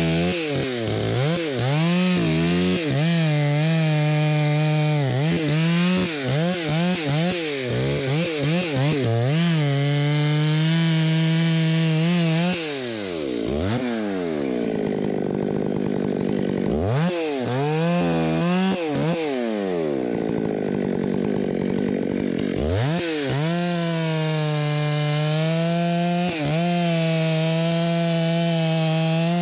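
Stihl MS 661 two-stroke chainsaw cutting into a white fir trunk at full throttle, its pitch dipping and recovering again and again. Midway the bar is out of the cut and the engine drops away and revs back up several times. It then settles back into a steady, high full-throttle cut.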